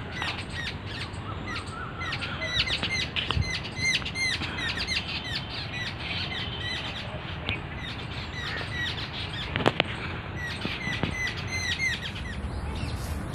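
Many small birds chirping, short quick chirps overlapping throughout, over a low rumble. One sharp click about two-thirds of the way through.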